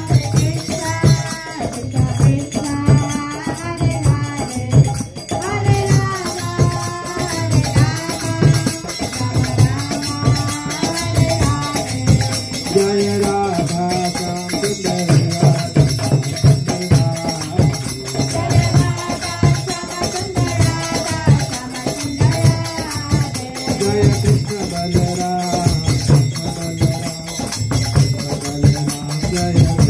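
Kirtan music: a chanted melody over a steady drum beat, with hand cymbals or a similar jingling percussion keeping time throughout.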